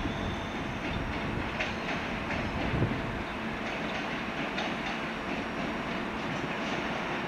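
ÖBB passenger train of red-and-white coaches rolling slowly into the station with a steady rumble, its wheels clicking irregularly over the track.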